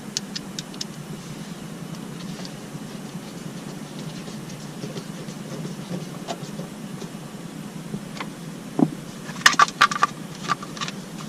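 Small clicks and knocks of hand work on a minivan's sliding-door interior trim panel as its screw is put back in, over a steady low hum. A quick run of sharper clicks comes near the end.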